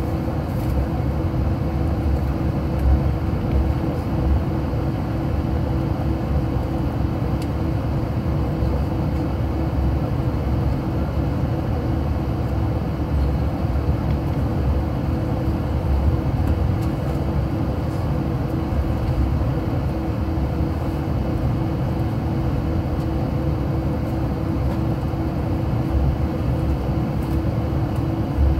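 Inside an airliner cabin while taxiing: the steady hum of the jet engines at low power with a constant tone, over a low rumble from the rolling airframe that has a few small bumps.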